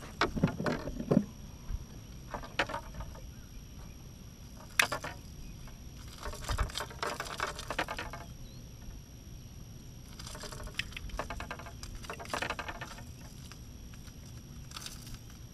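A freshly caught fish thrashing in the hand while being unhooked: short bursts of slapping and rattling every few seconds, the longest and busiest in the middle and near the end.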